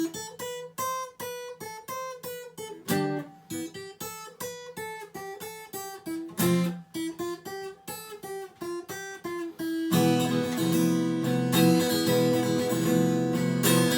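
Acoustic guitar playing a break: picked single notes one after another, then from about ten seconds in, strummed full chords.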